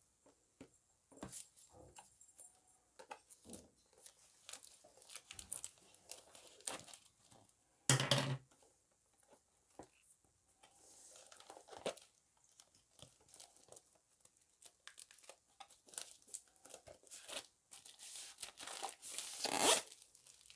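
Packaging being torn open and handled: scattered rustling and crinkling, a short loud burst about eight seconds in, and a longer tearing near the end, loudest just before it stops.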